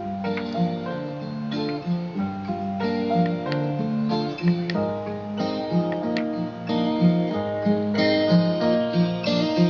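Acoustic guitar music with strummed and plucked chords, played back over Bluetooth through the small speaker of an ENUOSUMA BS15 alarm clock.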